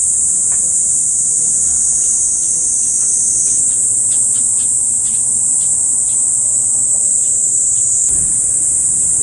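Insects shrilling in one continuous, loud, high-pitched drone, with a few faint short chirps or ticks repeating through the middle seconds.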